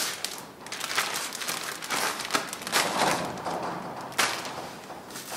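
Plastic zip-top bag crinkling and rustling as raw turkey breast meat is put into it and the bag is handled, with a few sharper crackles and clicks.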